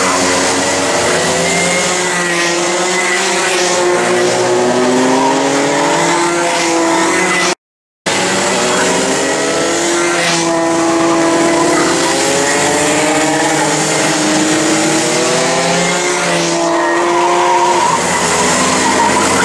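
Several two-stroke Rotax Max kart engines (SODI karts, 28 hp) overlapping, each pitch falling as a kart brakes into a corner and rising again as it accelerates out. The sound cuts out for about half a second a little before the middle.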